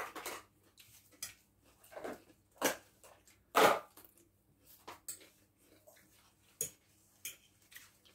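Irregular clinks and taps of a fork on a plate and a knife on a board as food is eaten and cut, the loudest about three and a half seconds in.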